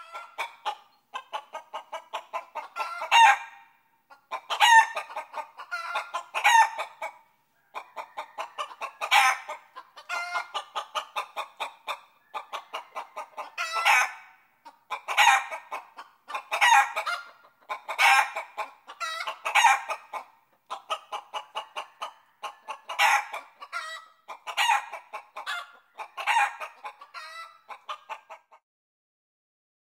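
Chickens clucking in quick runs of short notes, each run ending in a louder call, bout after bout. The sound cuts off about a second and a half before the end.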